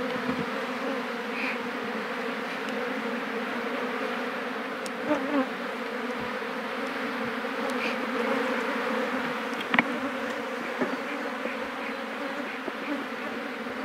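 Steady buzzing hum of a colony of African honey bees swarming over their opened hive. A sharp knock sounds about ten seconds in, with a few softer clicks elsewhere.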